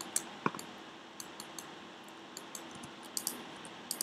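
Scattered light clicks of a computer keyboard and mouse, irregular taps spread through, over a faint steady room hum, with one short pitched blip about half a second in.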